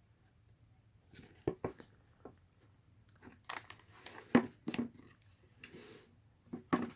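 Scattered short clicks and crackly rustles at an irregular pace from a sneaker being handled and turned over in the hands.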